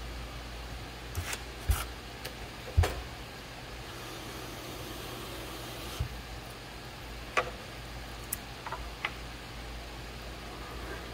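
Electric potter's wheel running with a steady low hum, while short sharp clicks and taps come at uneven intervals, the loudest two between about one and a half and three seconds in.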